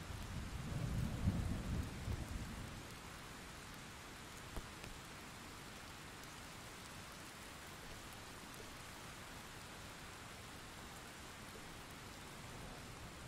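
Steady rain with a rumble of thunder that swells in the first second or so and fades out by about three seconds in. A faint low rumble of thunder returns near the end.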